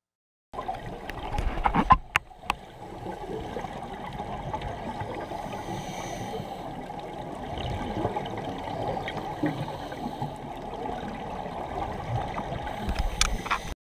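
Scuba divers' regulators and exhaled bubbles heard underwater through a GoPro's waterproof housing: a muffled, steady gurgling rush, with a louder burst and a few sharp clicks about two seconds in. It starts suddenly after a moment of silence and cuts off just before the end.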